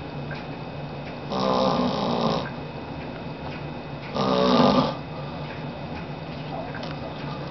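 An elderly man snoring in his sleep: two snores about a second long each, one a little over a second in and one about halfway through, some three seconds apart.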